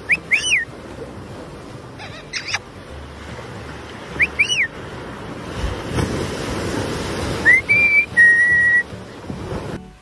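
White-fronted Amazon parrot giving short arched chirps three times, then a rising whistle that settles into two held whistled notes near the end, over the steady rush of ocean surf breaking on the beach.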